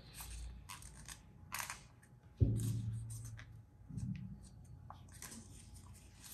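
A folded paper banknote crinkling and rustling in short crackles as it is pressed and creased by hand, with one sharp low thump about two and a half seconds in.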